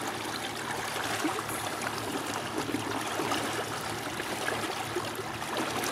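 Water washing and trickling steadily along the hull of a small inflatable pontoon under way.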